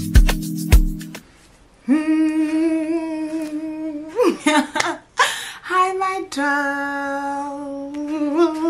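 Intro music with a beat that cuts off about a second in, then, after a brief pause, a woman's voice holding a few long, steady sung notes with a short slide between them.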